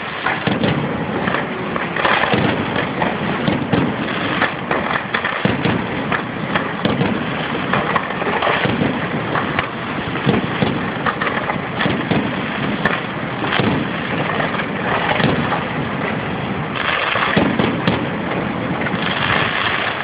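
Fireworks display: a dense, continuous run of bangs and crackling, many reports following one another quickly.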